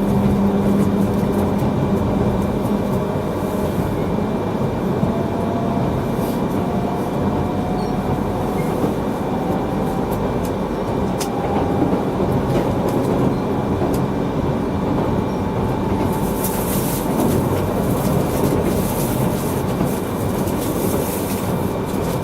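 Akita Shinkansen Komachi train running just after departure, heard from inside a passenger car: a steady rumble, with a faint whine rising slowly in pitch as the train gathers speed. A higher hiss of running noise joins in about sixteen seconds in.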